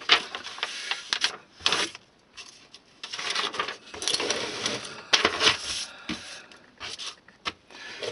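A sheet of paper rustling as it is handled and laid on a cutting mat. A small metal tin of rust powders is slid and lifted on the bench with repeated light clicks and rattles.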